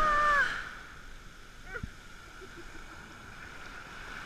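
Ocean surf washing in the shallows around the camera. A short high shout sounds in the first half-second, then the wash goes quieter.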